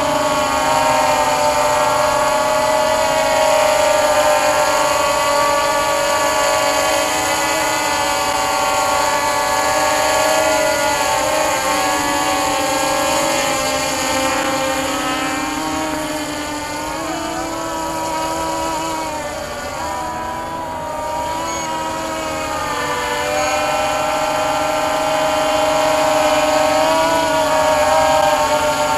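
Walkera Scout X4 quadcopter's electric motors and propellers whining in flight overhead, several pitches drifting up and down together as the throttle changes. The sound eases off for a few seconds past the middle, then returns to full strength.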